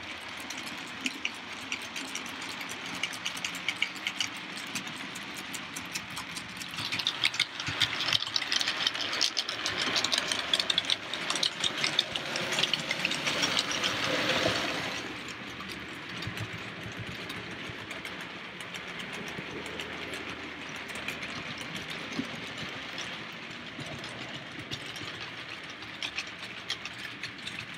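OO-gauge model trains running on the layout track, a steady rattle of many small clicks from the wheels on the rails. It grows louder and busier from about seven seconds in, then drops back to a steady lower rattle about fifteen seconds in.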